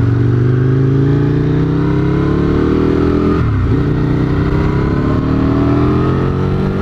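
Motorcycle engine accelerating, its pitch climbing steadily through the revs. About halfway through there is a quick upshift, with the revs dropping briefly, and then it climbs again.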